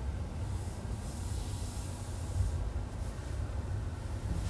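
Low, steady rumble of tyres and road heard inside the cabin of a Tesla Model 3 electric car while driving, with no engine note. A soft hiss swells and fades in the middle.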